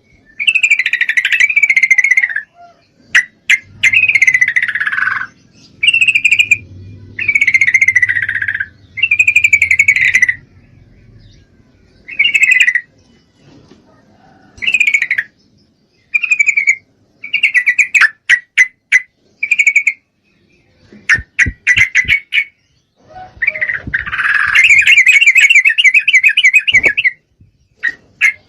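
Female yellow-vented bulbul (trucukan) calling over and over in breeding condition, the call used to draw a male. Bubbly chattering phrases about a second long come with short gaps between them, with quick clicky chatter and then a long rapid trill near the end.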